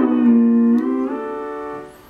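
A held synthesizer note whose pitch is bent by a knob fed through a MIDI pedal interface to the synth's pitch control: the pitch drops at the start, glides back up about a second in, and the note fades near the end.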